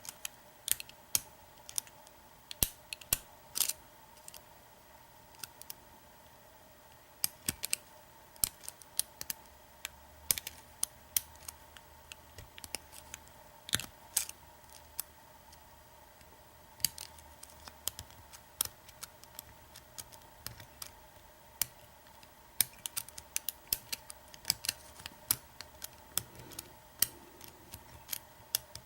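Lock pick and tension wrench clicking and scraping irregularly against the pins and keyway of an American 1100 padlock during single pin picking, over a low steady hum.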